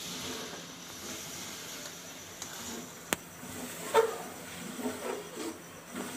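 Egg and onion masala sizzling in oil in a metal kadai while a perforated metal spatula stirs and scrapes through it, with a sharp click about three seconds in and a few short scrapes near the end.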